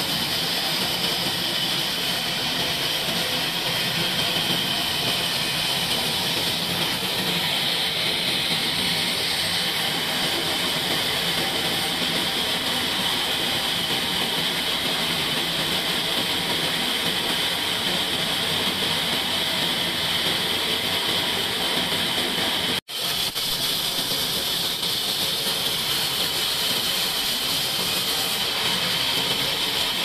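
Band sawmill's blade cutting lengthwise through a long log: a steady hiss over the machine's running drone, with a split-second gap about three-quarters of the way through.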